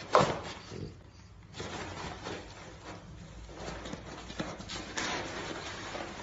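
A short animal sound right at the start, then soft rustling and light knocks of a cardboard box as a cat pushes against it and the French bulldog lying in it.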